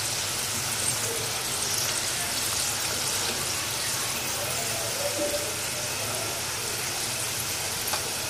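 Hot oil sizzling steadily as onion pakoras and potato fries deep-fry in a pan, with a short click near the end.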